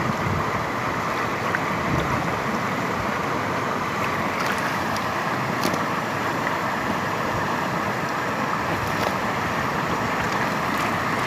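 Steady rush of river water flowing past rocks, with a few faint light ticks.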